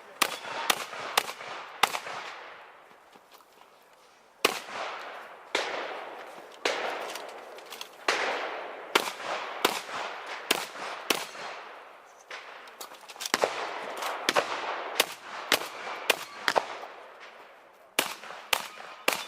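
Shotgun shots fired in quick strings, at times about two a second, each followed by reverberation that dies away. There is a pause of about two seconds after the first four shots.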